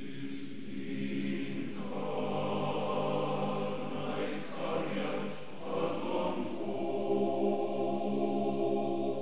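Background music: a choir singing slow, long-held chords that change a couple of times.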